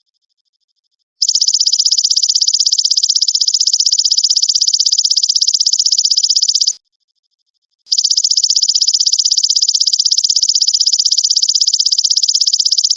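Belalang emas (golden grasshopper) calling: a high, fast-pulsed buzzing trill. It starts about a second in, runs for about five seconds, stops for about a second, then starts again and carries on.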